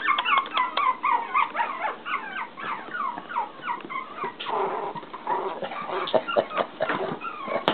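Young terrier puppies squeaking and whimpering: a quick run of short, high squeaks, each falling in pitch, several a second. About halfway through the squeaks thin out into scattered cries mixed with short clicks.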